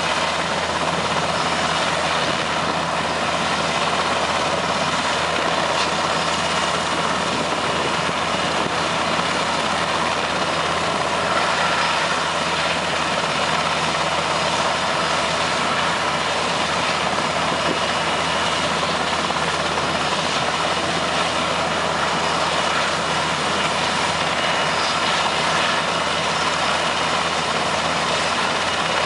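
Super Puma helicopter running on the ground with its twin turbine engines and main rotor turning, a loud steady sound that holds unchanged without spooling up or down.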